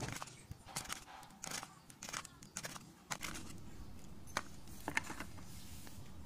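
Metal spoon stirring a thick mixture in a small glass cup, giving a series of light clinks and scrapes against the glass, about one every half second.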